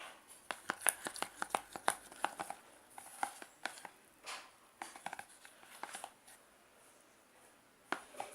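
Hand-handling noises: a quick, irregular run of small clicks and crackles for about six seconds, then a pause and a couple more near the end.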